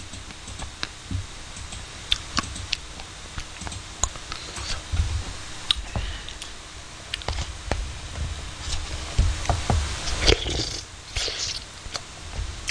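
Close eating sounds: a spoon scraping and clicking in a tub of ice cream, with soft chewing, as scattered sharp clicks that come thicker about ten seconds in.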